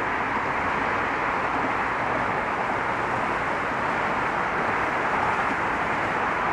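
Steady, even noise of car traffic flowing across a bridge, with no single vehicle standing out.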